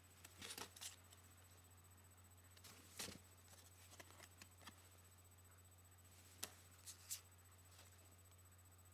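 Faint handling noises: a few short rustles and clicks, spaced unevenly, over a steady low electrical hum.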